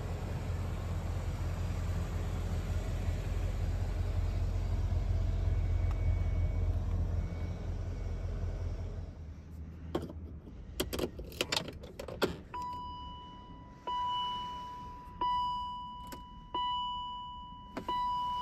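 2003 BMW Alpina Roadster's 4.8-litre V8 idling, then switched off with the key about nine seconds in. Keys jangle against the ignition, then a dashboard warning chime sounds, a single tone struck again about every second and a quarter, each strike fading.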